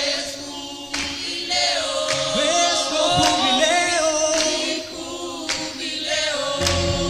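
A choir singing a cappella in held, gliding notes; a low bass accompaniment comes in near the end.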